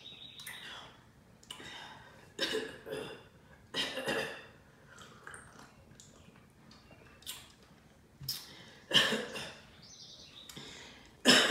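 A person drinking iced Pepsi from a glass: a few separate gulps and swallows with breathy exhales between sips, the loudest near the end.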